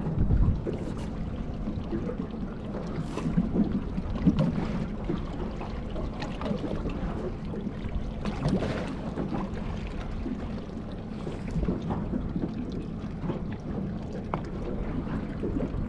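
Wind and water sounds around a small boat drifting at sea, with a few light knocks from handling on board.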